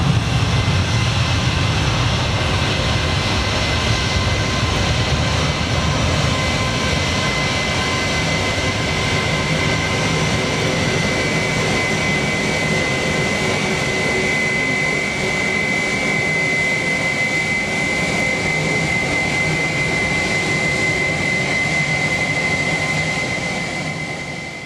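Boeing 757-200 jet engines at takeoff power as the airliner rolls, lifts off and climbs away. A deep rumble thins out over the first several seconds, while a steady high whine grows stronger in the second half. The sound fades out near the end.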